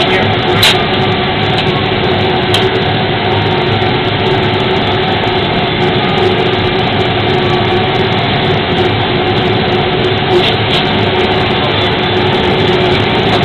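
Airport fire truck's engine and foam pump running steadily, heard from inside the cab as a constant heavy drone with a steady hum, while the roof turret sprays foam. A few faint clicks.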